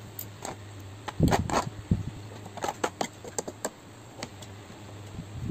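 Close-up eating sounds: spoon and fork clicking and scraping on a tray and mouth sounds of chewing, a run of small sharp clicks with a few louder thuds about a second in. A faint steady hum runs underneath.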